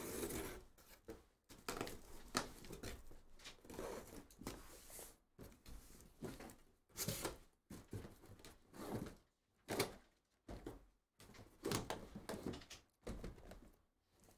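A cardboard shipping case being opened and handled, with irregular rustling, scraping and knocks of cardboard as sealed trading-card boxes are lifted out of it.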